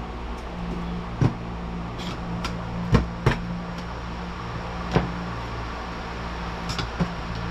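A handful of sharp clicks and knocks, spaced unevenly, as the small tabs on a Tri-Five Chevy wing window's rubber seal are pried up and bent out of the metal frame, over a steady low hum.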